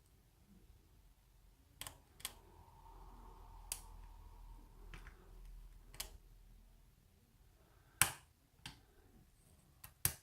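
Sharp metal clicks from picking a spool-pinned lock by hand, about eight at irregular intervals, as the pick and tension tool work the pins. The loudest click comes about eight seconds in, with another near the end.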